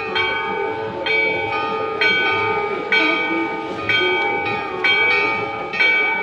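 Temple bell rung for the aarti, struck about once a second in an even rhythm, each strike ringing on into the next.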